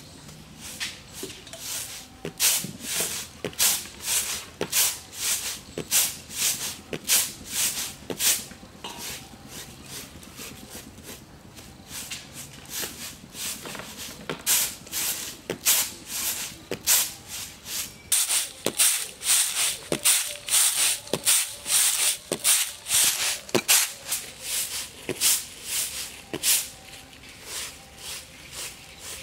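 Grain rattling and sliding on a flat woven winnowing tray as it is shaken and tossed in short rhythmic strokes, about two a second, while the grain is being cleaned. The strokes get louder and hissier for a while in the second half.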